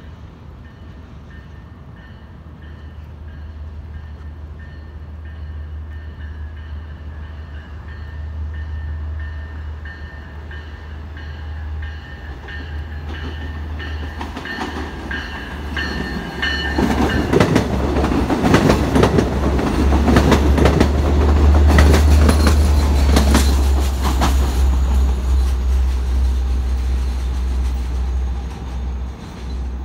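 Long Island Rail Road diesel train approaching and passing through a station at speed: a low engine rumble builds over the first half, then the wheels rush and clatter over the rail joints as it goes by, loudest a little past halfway, before easing as the train recedes.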